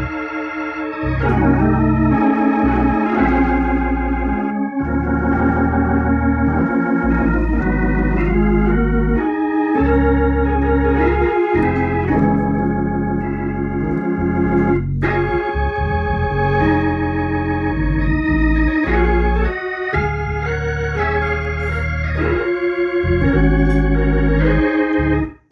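Hammond organ played through a Leslie speaker: sustained chords changing every second or two over low bass notes, with a brief break about halfway through. It is playing with a new 12AU7 tube that sits tightly in the Leslie amplifier's socket, in place of a loose tube that had been causing static and dropouts.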